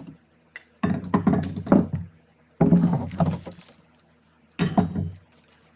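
NP 242 transfer case being worked by hand on the bench: the shafts are turned and the shift lever moved, giving three bursts of metal gear and spline noise about a second apart.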